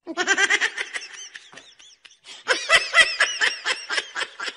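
A person laughing in two quick runs of high-pitched, rapid ha-ha pulses, the second longer.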